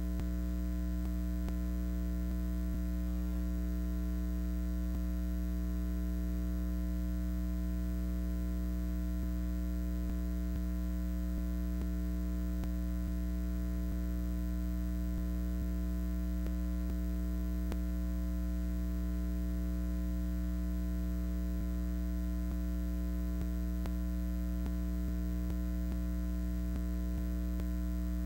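Steady electrical mains hum with a buzz of higher overtones, unchanging in pitch and level.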